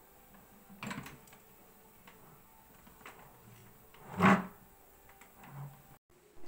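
Hand-cranked stainless steel pasta roller being turned as a sheet of baklava dough is rolled through it: a few scattered mechanical knocks and rattles, the loudest a sharp knock about four seconds in.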